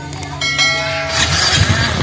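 Fuel-injected Yamaha Mio Soul scooter's single-cylinder engine being started after its rat-chewed wiring was repaired. A brief ringing tone sounds about half a second in, then the engine catches about a second in and runs with fast, uneven pulsing.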